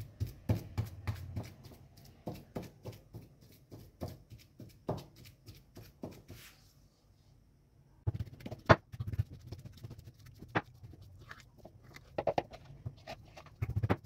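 Boiled potatoes being mashed with a pestle in a small mortar bowl: repeated knocks of the pestle against the bowl, with a short pause about halfway, then a run of louder knocks.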